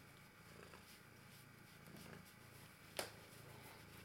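Quiet, low purring from a cat being stroked, and a single sharp click about three seconds in.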